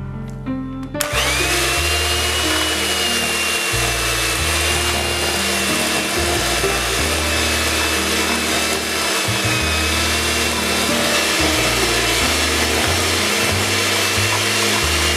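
Electric hand mixer running, its beaters creaming softened butter and sugar in a steel bowl. It starts about a second in with a short rising whine, then holds a steady high motor whine over the hiss of beating.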